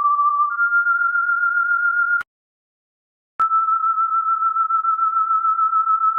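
Steady electronic sine tones at a fairly high pitch, stepping up a little and briefly overlapping. About two seconds in the tone cuts off with a click, there is about a second of silence, then another click and a steady tone resumes.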